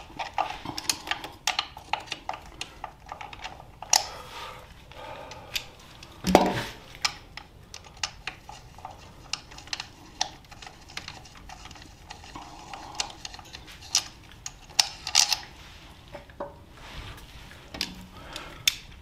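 Hand socket ratchet with an extension clicking in quick runs as a sprocket cover bolt is loosened and backed out, with metal clinks of the tool and a louder knock about six seconds in.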